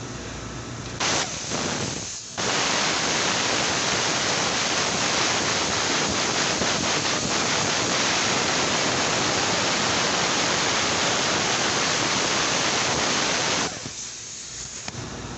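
A steady, loud rushing hiss. A short burst comes about a second in, and the hiss proper starts about two and a half seconds in and cuts off near the end.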